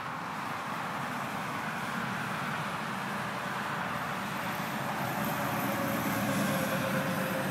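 A car passing on the road, its tyre and engine noise building steadily to a peak about six seconds in.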